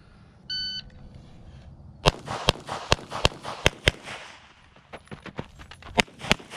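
A shot timer gives one short electronic start beep. Then a CZ Shadow 2 pistol fires a quick string of six shots, a bit under half a second apart. After a pause of about two seconds while the shooter moves to a new position, it fires two more shots.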